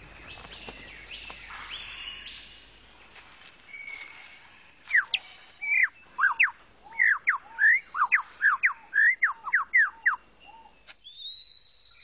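Superb lyrebird singing: from about five seconds in, a rapid run of loud, clear whistled notes, each a quick sweep up or down, then a long rising whistle near the end.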